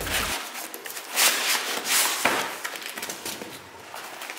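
Cardboard box and foam packing rustling and scraping as they are handled, with short crackles and knocks throughout.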